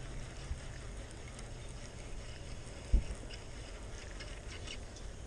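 Handling noise from a baitcasting reel held in the hands: a single sharp thump about three seconds in, then a few light clicks, over a steady low rumble.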